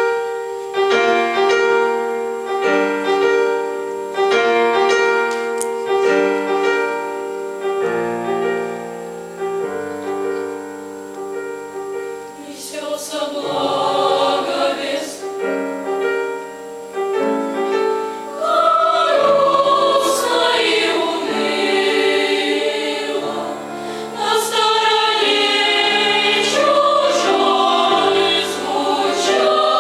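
Children's choir singing with piano accompaniment. For the first dozen seconds a piano plays a repeated chiming figure of chords alone, then the choir comes in and sings over it.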